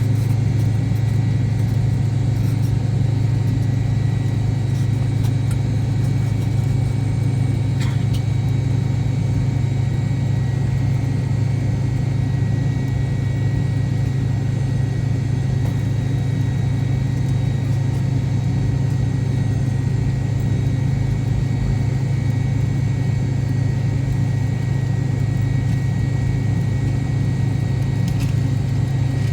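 Cabin noise of an MD-88 airliner with its rear-mounted Pratt & Whitney JT8D turbofan engines running at a steady low power: a loud, even low drone with a faint steady high whine above it.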